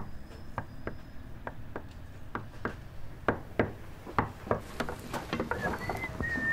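Repeated sharp knocks at an uneven pace, about two or three a second, with a few short chirps like a bird's near the end.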